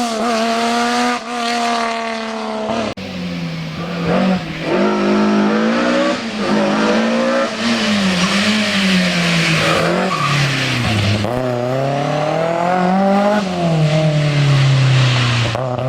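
Historic rally car engine driven hard on a special stage, revving up and dropping again and again through gear changes and lifts for corners. An abrupt cut about three seconds in brings in another car doing the same.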